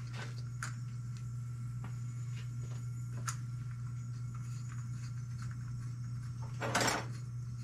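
Faint small metal clicks of a washer and lock nut being handled and threaded by hand onto a shaft end, over a steady low electrical hum. A short rush of noise comes near the end.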